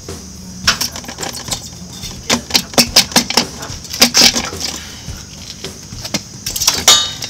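Irregular metallic clicks and clanks in clusters of sharp knocks, as a truck's front coil spring is worked loose and pulled out from its seat on the axle.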